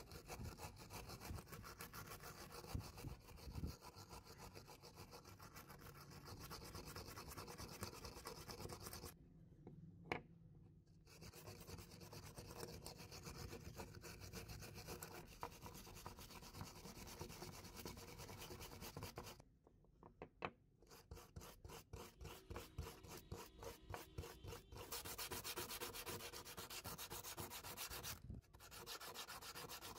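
Steel wire hand brush scrubbing rust off an old needle-nose plier in quick back-and-forth strokes, stopping briefly twice; near the end it changes to the rub of sandpaper on the plier.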